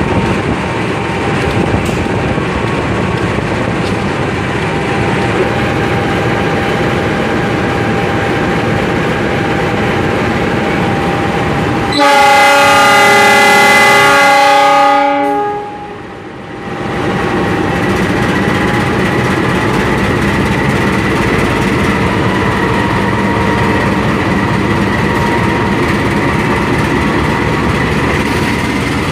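Diesel-electric locomotive of the CC206 class running with a steady drone. About twelve seconds in, its horn sounds one loud chord-like blast lasting about three seconds.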